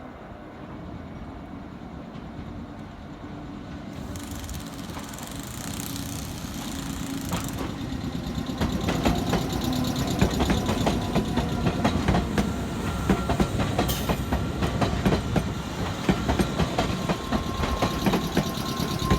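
A train approaching and passing, louder over the first several seconds. From a little before halfway, its wheels set up a fast run of clacks over the rail joints.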